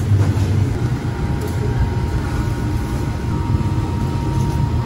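Steady low rumble of background machinery, with a faint thin whine that comes in about a second in and fades near the end.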